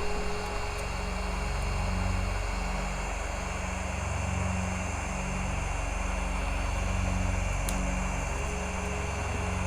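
Steady rush of a hot-air rework tool blowing onto the motherboard to melt the solder under the eMMC chip, with a low hum that swells and fades about twice a second.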